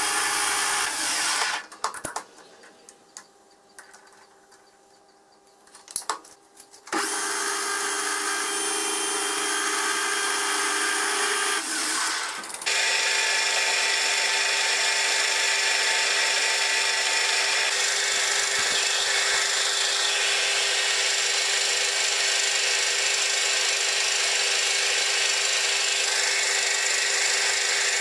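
Metal lathe running while turning a metal blank, then a milling machine's spindle drilling into the clamped blank. About two seconds in the machine noise drops away for a few seconds of quiet with a few clicks, then the lathe runs again. At about twelve seconds the sound changes to the steady drilling, which carries on.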